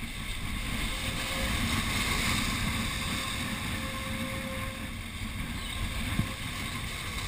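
Surf washing and breaking over jetty rocks, with gusting wind buffeting the microphone.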